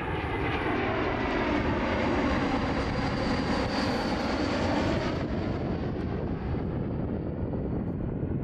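Jet airliner passing by, its engine noise swelling to a peak in the middle and then losing its hiss and fading about five seconds in.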